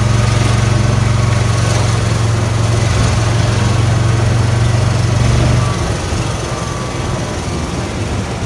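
Golf cart driving along, its small engine humming steadily, with wind and road noise underneath. The engine hum drops away a little before six seconds in, leaving the rolling noise.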